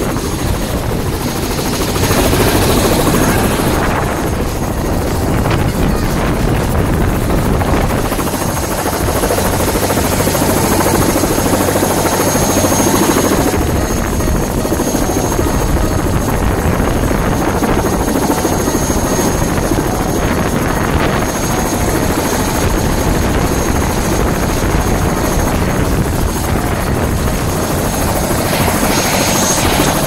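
Turbine tour helicopter running on the helipad close by: steady rotor noise with a thin, high turbine whine held over it.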